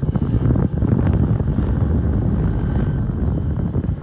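A loud, steady low rumble of a nearby motor, with a rapid flutter in it.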